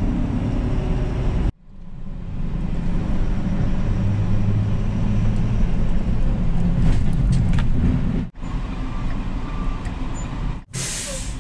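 Pickup truck driving, with steady engine and road noise heard from inside the cab. The sound drops out abruptly a few times, and a short burst of hiss comes near the end.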